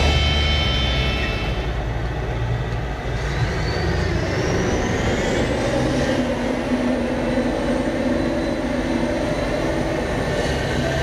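Claas Jaguar forage harvester running while it chops corn, with the tractors pulling the trailers alongside, a dense steady machine noise. A faint high whine rises in pitch about halfway through and then holds. Music fades out over the first couple of seconds.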